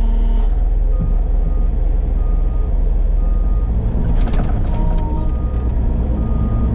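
Case skid steer's diesel engine running steadily under load with its backup alarm beeping about once a second. A few sharp crackles come about four seconds in.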